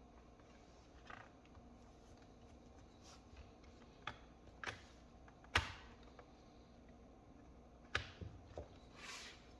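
Hands handling a laptop and small hard parts: sparse small clicks and knocks, the loudest a little past halfway, a quick cluster later on and a short rustle near the end.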